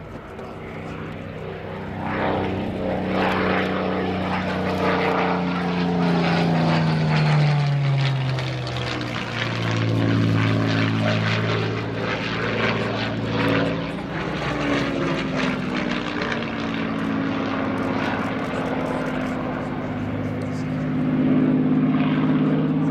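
Second World War propeller fighters, a Supermarine Spitfire and a Hawker Hurricane with V12 piston engines, flying past at full song. The engine note drops steeply in pitch as an aircraft passes about seven seconds in, falls again more gently around fifteen seconds, and grows louder near the end.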